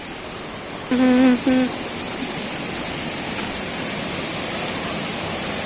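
Waterfall rushing steadily, with a short voiced call about a second in.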